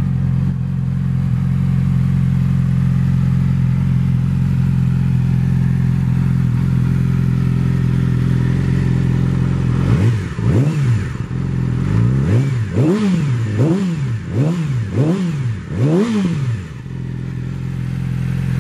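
2014 Yamaha R6's inline-four engine idling steadily through a Two Brothers Black Series aftermarket exhaust. About ten seconds in, six or seven quick throttle blips, each revving up and dropping straight back, before it settles back to idle.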